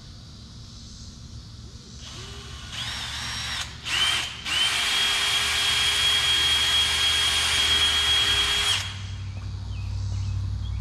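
Cordless drill spinning up in a couple of short trigger pulls, then running steadily with a high whine for about four seconds as it bores out bolt holes in the Corvette's rear decklid, enlarging them to leave the spoiler room to move.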